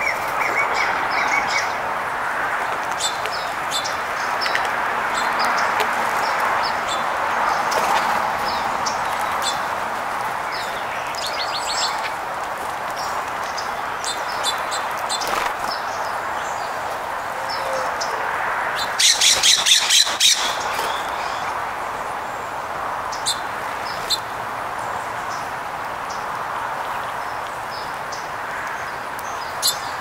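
Songbirds chirping over a steady background rush. About two-thirds of the way in comes a loud run of about seven quick harsh squawks, typical of a jay.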